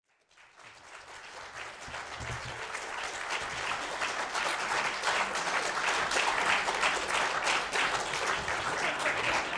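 Audience applauding, many hands clapping at once. The clapping fades in over the first few seconds and then holds steady.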